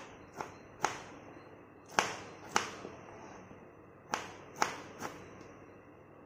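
Kitchen knife cutting through tomatoes and knocking on a wooden chopping board: about eight sharp knocks at an uneven pace, in three short groups.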